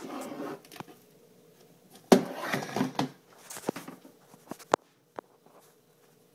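Handling noise from a plastic storage tub being moved about: rustling at first, a burst of scraping about two seconds in, then a few short sharp plastic clicks and knocks.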